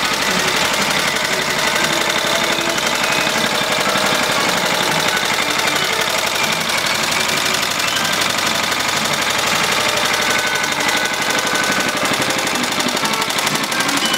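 A 1942 wartime generator set's small single-cylinder air-cooled engine running steadily at speed, a rapid even firing beat. It is running well, like new.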